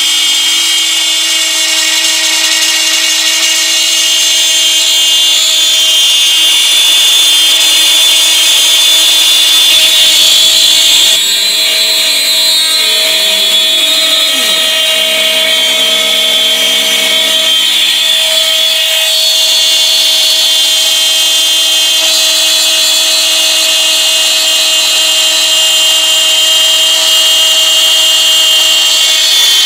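Bosch Colt trim router spinning a two-flute end mill through bamboo under CNC control: a loud, steady high-pitched whine. For a few seconds around the middle, lower tones glide up and down alongside it.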